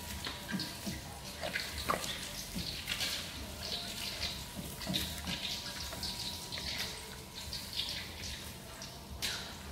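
Liquid splashing and pouring as coconut-milk fish curry is ladled from an aluminium wok into a container, with a few short clinks of the ladle.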